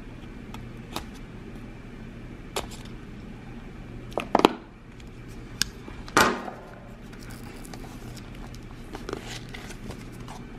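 A small retail box of replacement sunglass lenses being opened and handled: scattered sharp clicks and taps of the packaging, loudest about four and six seconds in, with softer handling noise between.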